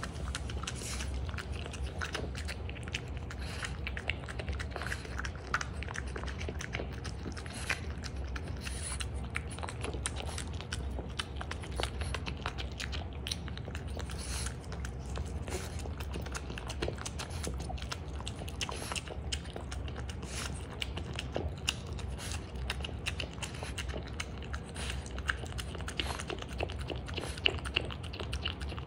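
French bulldog eating soft raw beef and salmon tartare: steady wet chewing, smacking and licking, with many small clicks throughout.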